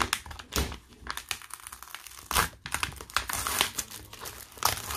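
Rose gold metallic foil mailer crinkling as hands pull and tear it open, in irregular crackles, busiest around the middle.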